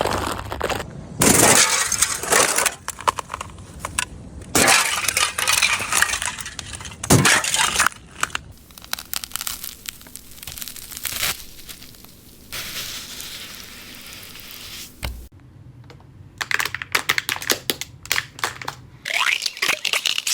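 Repeated bursts of cracking, crackling and clinking from something brittle being broken or crushed, with quieter pauses between the bursts.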